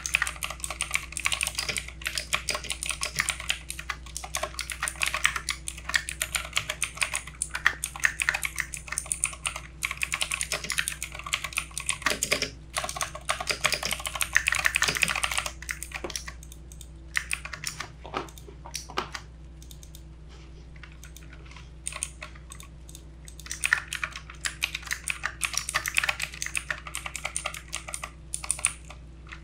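Typing on a backlit mechanical keyboard: dense, quick runs of key clicks, thinning to a few scattered keystrokes for several seconds past the middle before the fast typing resumes. A faint steady low hum sits underneath.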